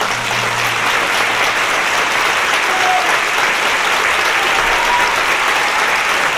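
Theatre audience applauding steadily and loudly at the end of the aria, as the orchestra's last low note dies away in the first second.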